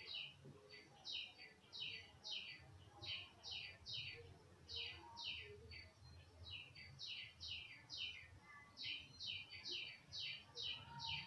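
A bird chirping faintly over and over: short high chirps that fall in pitch, about three a second, with a brief pause midway.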